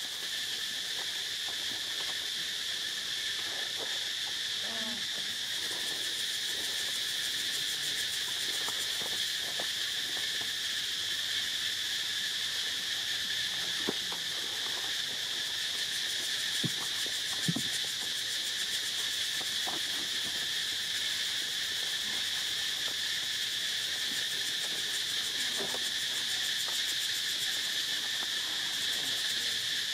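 Steady, high-pitched drone of insects, holding an even pitch throughout, with a few faint clicks around the middle.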